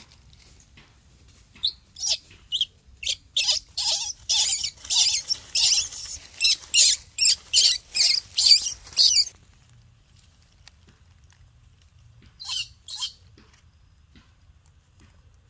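Dry fallen leaves crunching and rustling in a quick run of bursts as a baby monkey scrambles over the leaf litter, stopping about nine seconds in. Two more short rustles come near the end.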